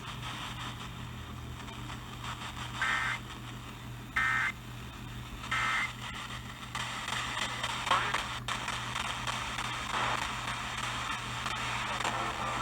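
Emergency Alert System end-of-message data tones: three short buzzy bursts of the digital code, each about half a second, about a second and a half apart, marking the end of the flash flood warning. They are followed by steady radio hiss and hum with a sharp click.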